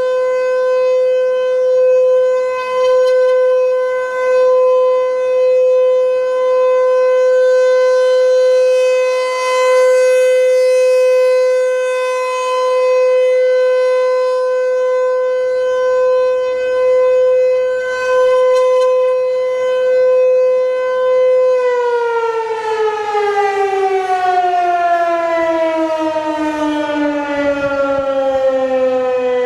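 ASC T-128 outdoor warning siren sounding the steady Alert tone, its loudness swelling and fading every couple of seconds. About three-quarters of the way through the tone cuts from steady into a long falling wind-down as the rotor coasts to a stop.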